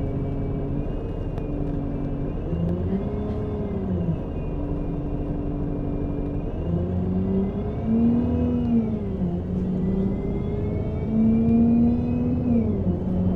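Bus engine running under way. Its note rises and falls several times as the bus speeds up and slows, with a sharp drop in pitch near the end, over steady road noise.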